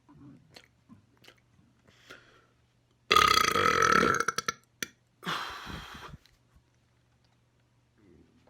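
A man's loud, long burp, starting suddenly about three seconds in and lasting about a second and a half. A quieter, hissier sound follows about two seconds later.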